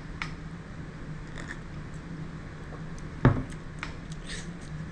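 A tall glass of Bloody Mary on ice being sipped, with a few small clicks, then set down on a wooden table with one solid knock a little over three seconds in, the loudest sound. A low steady hum runs underneath.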